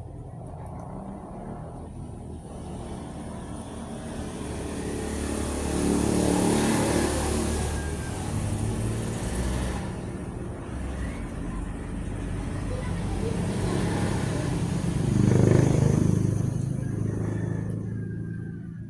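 Motor vehicles driving past, the engine sound swelling and fading twice: once about six seconds in and again, louder, near fifteen seconds.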